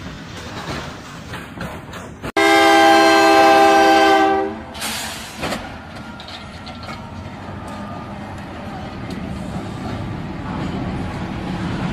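Freight train rumbling past. About two seconds in, a diesel locomotive's air horn sounds one loud blast of about two seconds, a chord of several notes held steady. Then the rumble of the passing locomotive and train grows louder toward the end.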